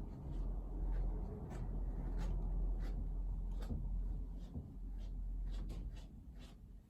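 A brush drawn through a Ragdoll cat's long fur in a series of short, quick strokes, over a steady low rumble.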